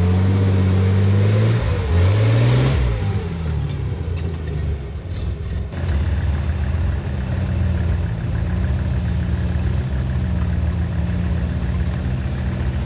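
Rock-crawler engine working under load on a rock climb: it revs up about two seconds in, eases off and dips between about four and six seconds, then runs steadily again with small surges.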